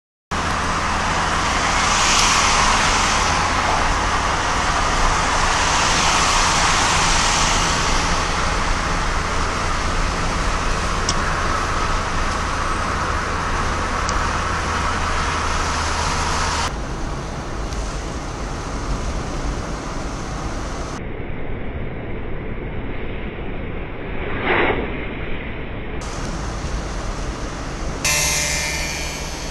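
Steady road noise from inside a vehicle at motorway speed, tyre and wind noise with a low engine hum picked up by the dashcam microphone. Its character changes abruptly a few times, and there is a brief swell about three-quarters of the way through.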